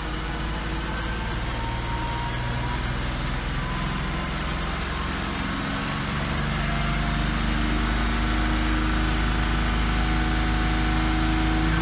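Porsche Cayman S 3.4-litre flat-six engine running with its revs rising slowly and steadily, getting louder about halfway through. It carries an abnormal engine noise that the owner suspects comes from the hydraulic lash adjusters, though it may be piston knock.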